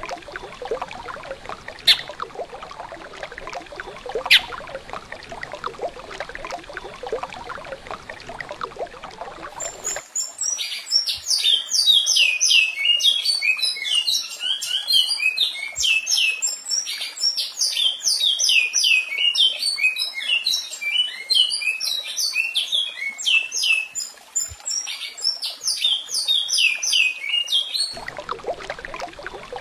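Recorded songbird song played back from a Pássaro Professor bird-song player. A fast, unbroken run of high, downward-sliding whistled notes starts about a third of the way in and stops shortly before the end. Before it there is a steady hiss with a few sharp clicks.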